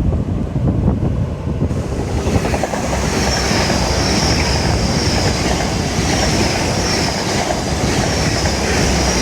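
Passenger train passing close by on a seaside railway line. Its running noise swells about two seconds in and then holds steady, with a thin high whine wavering over it.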